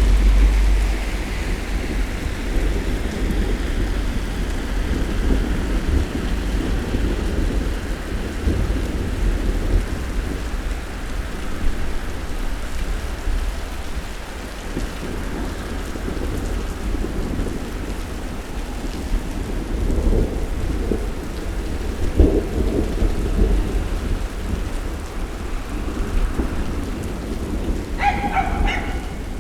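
Thunderstorm: steady rain falling, with rolling thunder that is strongest at the start and swells again about twenty seconds in. A dog barks briefly near the end.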